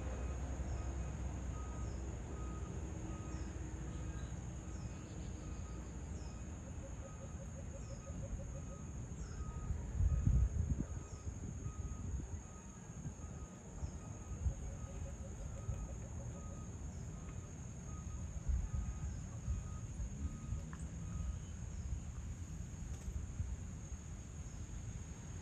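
Crickets and other insects: a steady high-pitched drone with short chirps repeated about once a second, over a low rumbling noise that swells about ten seconds in.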